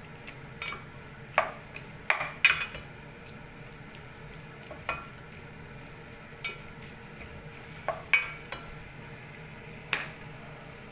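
Black plastic spatula scraping and knocking against a stainless steel pot as cubed pork belly is stirred, in irregular strokes. Under it, a faint steady sizzle of the pork and onion frying in oil.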